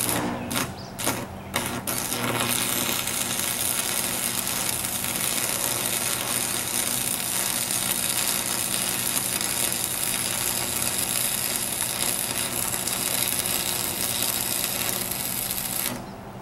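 Welding arc crackling and sizzling: a few short starts in the first two seconds, then one steady bead for about fourteen seconds that cuts off suddenly near the end. The welder is running a little hot, set between 135 and 150.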